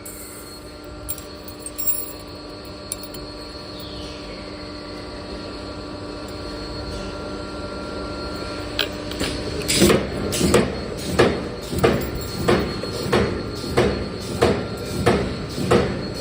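Wire-processing machinery running with a steady hum and a few clicks. About ten seconds in, a machine starts cycling, with a regular clunk about one and a half times a second.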